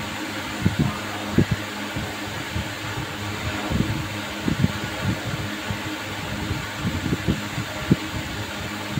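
Steady hum and whoosh of a running electric ceiling fan, with scattered soft low thumps throughout.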